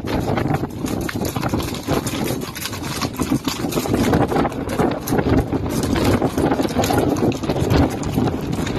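Hooves of a herd of horses running over gravel, a dense, irregular clatter of many hoofbeats, with wind buffeting the microphone.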